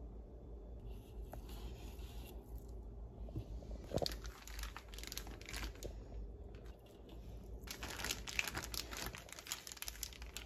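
Ziploc plastic freezer bag crinkling and rustling as it is handled and filled with ground meat, in three spells of crackling. The longest spell comes in the last few seconds.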